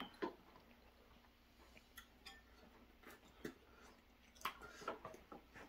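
Faint eating sounds at a table: soft chewing and scattered light clicks of spoons against bowls, a little busier about four and a half seconds in.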